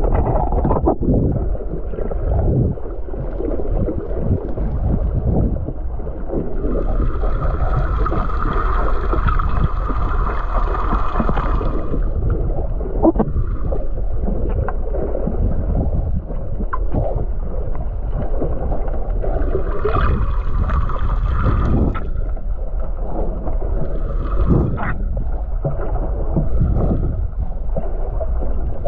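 Water sloshing and rushing around a camera held just under the sea surface, with knocks and bumps against the housing. A steady higher hum comes in twice, for about five seconds a few seconds in and again for about two seconds later on.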